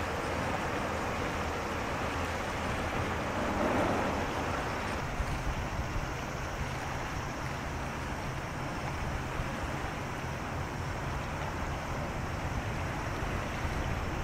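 Steady outdoor wind noise with a low rumble underneath, and a brief louder rush about four seconds in.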